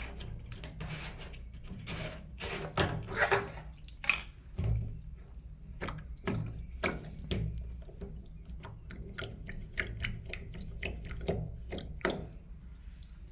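Water running and dripping, with irregular clicks and knocks of handling, in a video on cleaning a clogged washing machine drain filter.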